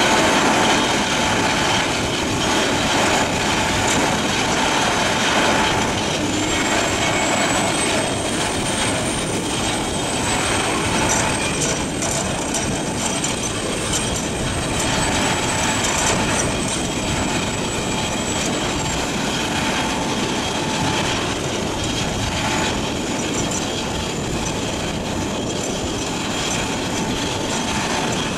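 Morbark HT1684 Predator tracked slow-speed shredder working under load: a steady heavy engine drone with the crunching and grinding of waste wood in the shredding chamber, an excavator loading it alongside. A high thin whine rises about six seconds in and holds until just before twenty seconds.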